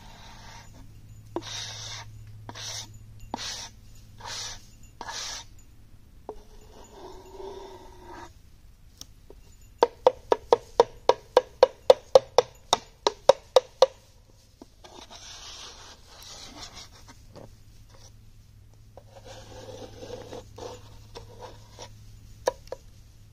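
Gloved hand scraping and pressing wet clay across a metal drying tray in a series of short rubbing strokes. About ten seconds in comes a quick run of around fifteen sharp slaps or taps, about four a second. A faint steady low hum runs underneath.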